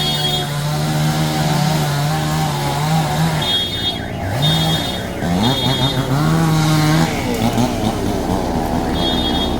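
A small petrol engine running fast and steady. Its pitch falls off about three and a half seconds in, then it revs back up twice and holds high again before easing off near the end.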